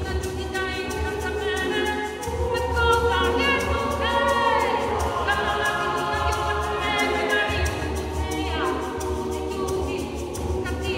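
Mixed choir of women's and men's voices singing unaccompanied, holding long chords.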